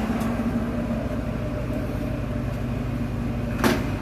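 Steady low motor hum, like an engine or generator running, with one short sharp knock near the end.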